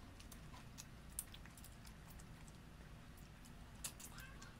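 Faint eating sounds: scattered soft clicks and crackles of cooked shrimp shells being peeled by hand, and chewing, over a low room hum.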